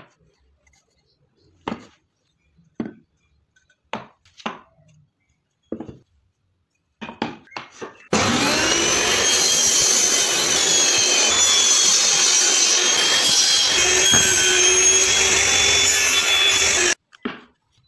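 A few sharp wooden knocks as a pine block is set down and handled on a table saw's top. About halfway through, the table saw starts up, its pitch rising as it comes up to speed, and runs loudly, cutting a notch in the pine block, then stops abruptly near the end.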